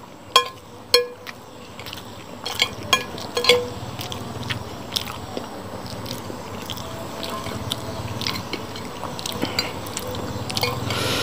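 Metal spoon clinking and scraping on a glass plate, with a quick run of sharp ringing clinks in the first few seconds, then softer chewing and occasional small clicks of the spoon.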